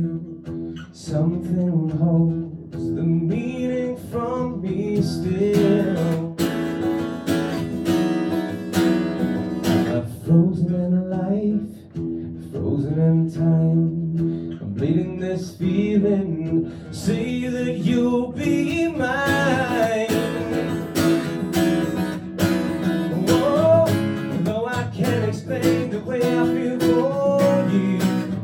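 A man singing a slow song live, accompanying himself on a steel-string acoustic guitar.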